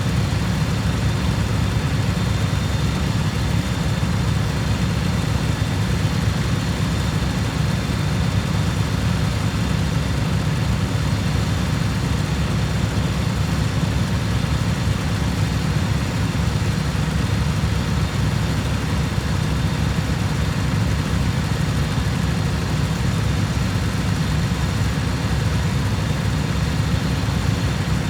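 Cub Cadet riding mower's engine running at a steady speed, a constant low rumble with no change in pitch or level.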